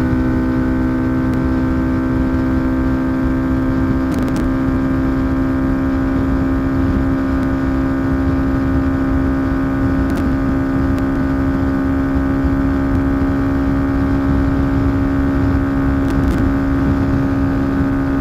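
2022 Honda Grom's 125 cc air-cooled single-cylinder engine with a Yoshimura RS9T full exhaust, held flat out at a steady high pitch at its top speed of about 73 mph, with wind rush on the microphone.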